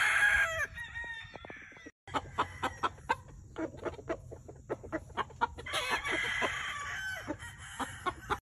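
Chickens calling: the tail of a rooster's crow, then many short clucks, with another longer call about six seconds in.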